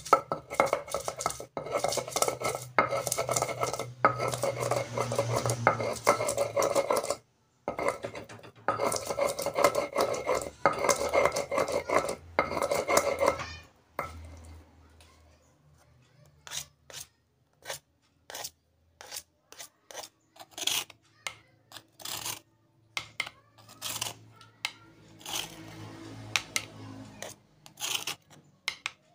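Stone pestle being rubbed hard back and forth on a flat stone mortar, a rapid grating grind. It stops briefly once and then runs on. About halfway through it gives way to quieter scattered taps and scrapes, and near the end a plastic spatula scrapes the ground paste off the stone.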